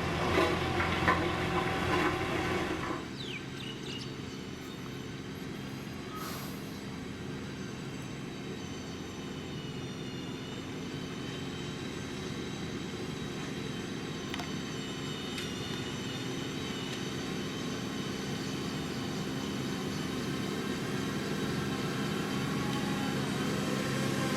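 Heavy road-construction machine's diesel engine running, a steady sound with several held tones. A louder, rougher stretch in the first three seconds cuts off abruptly, and the engine sound then grows slowly louder.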